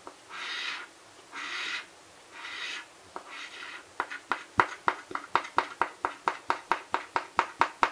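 A coin scratching the coating off an instant lottery ticket: four slow scrapes about a second apart, then from about four seconds in a quick run of short, sharp scratches, about four a second.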